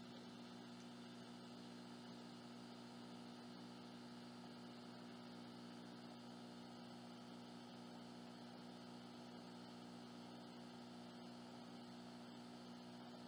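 Near silence: a faint, steady electrical mains hum with light hiss.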